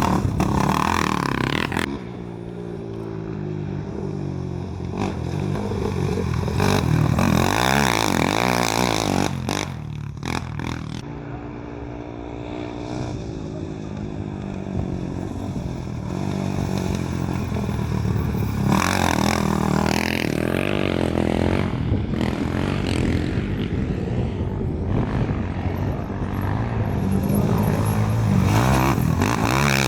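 Off-road racing engines revving hard, rising and falling in pitch, with vehicles passing by several times.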